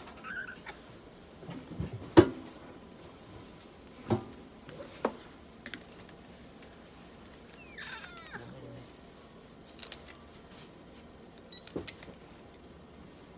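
A tabby cat on a vet's exam table gives one short, wavering, falling meow a little past the middle. Around it are scattered handling knocks and clicks, the loudest about two seconds in, with light clicks near the end as the vet works at its paw.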